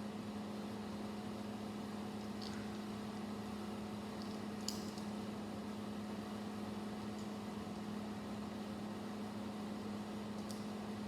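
Steady low electrical hum with hiss, broken by a few faint clicks of plastic LEGO pieces being handled, the sharpest near the middle.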